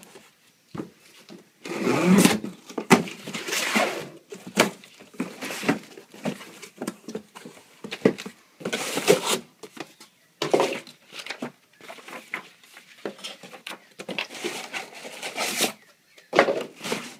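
Cardboard shipping box being cut open and unpacked: the tape slit, then flaps and cardboard inserts pulled about, with irregular rustling, scraping and knocks.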